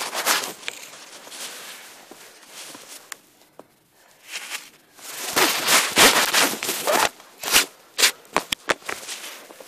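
Handling noise from a handheld camera and clothing rustle of a person climbing and scrambling over stones, with scuffing steps. Near the end come a quick series of sharp clicks and knocks.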